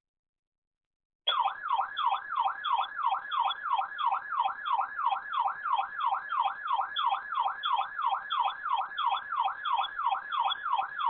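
Weather radio receiver's alert alarm triggered by a Winter Storm Warning: a loud warbling siren tone sweeping up and down about three times a second, starting about a second in.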